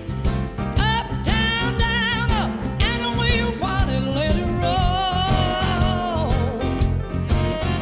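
Background music: a song with a wavering sung melody over a steady beat.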